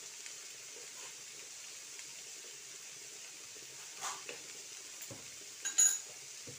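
Low sizzling of fenugreek leaves and peas frying in a steel kadhai. A steel spoon clinks against the pan a few times, with one sharp, ringing clink near the end that is the loudest sound.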